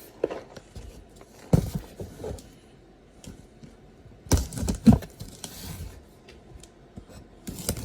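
Cardboard boxes and packaging being handled on a table: a few knocks and scrapes, loudest about four and a half to five seconds in.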